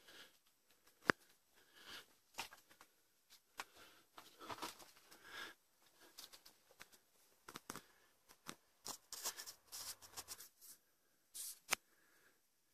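Irregular rustling and crunching of dry leaves and twigs, footsteps and brushing through undergrowth, with scattered sharp clicks, the sharpest about a second in.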